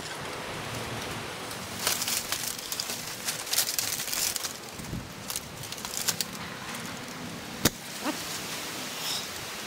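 Dry palm fronds rustling and crackling as they are handled and pushed about, with a single sharp click late on, over a steady hiss.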